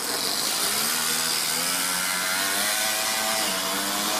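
Toyan FS-S100 four-stroke single-cylinder overhead-cam engine in an RC crawler running under load as the car drives. Its buzzing note rises a little and then sags slightly with the throttle.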